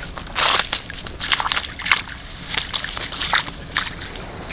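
Water sloshing and splashing in short irregular bursts as a hooked crucian carp is played at the surface and landed, over a steady low rumble.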